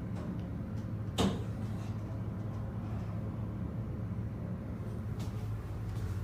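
Steady low hum inside a Schindler Westinghouse traction elevator cab as it travels between floors, with a single sharp knock about a second in.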